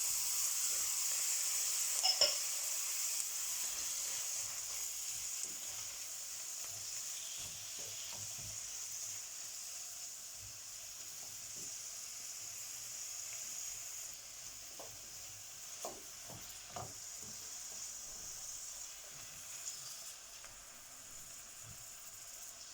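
Chopped onion frying in olive oil in a paella pan: a steady sizzle that slowly dies down, with a sharp click about two seconds in and a few light knocks of a utensil stirring near the end.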